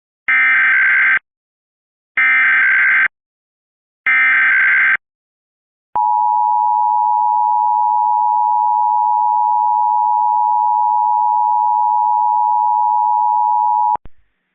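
Emergency Alert System signalling at the start of an alert: three short bursts of SAME digital header data, each under a second long and about two seconds apart, then the EAS two-tone attention signal (853 and 960 Hz) held steady for about eight seconds and cut off abruptly. It opens a required monthly test of the system.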